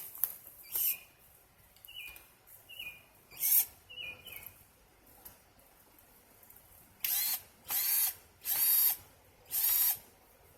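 Black & Decker cordless drill run in short trigger bursts in reverse, backing out old screws. Several brief high whines come first, then four louder noisy bursts of about half a second each near the end.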